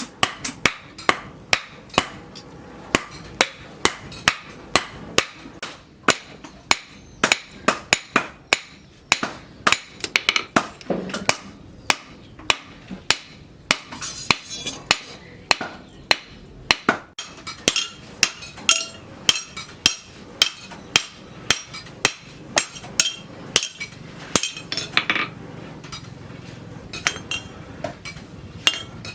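Hammer blows striking steel in a blacksmith's forging, sharp separate strikes at roughly two a second, with a short lull about halfway through.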